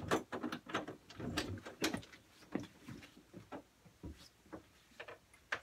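Door knob and latch clicking as a bathroom door is opened, then footsteps walking away, growing fainter, about two a second. A single sharp click near the end.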